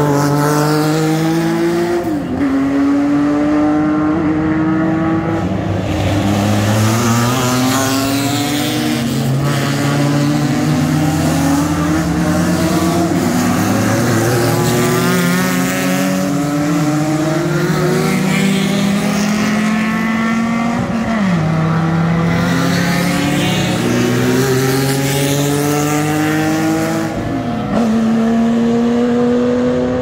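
Vintage racing sports cars accelerating hard past one after another. Their engines climb in pitch through each gear, with sudden drops at every upshift.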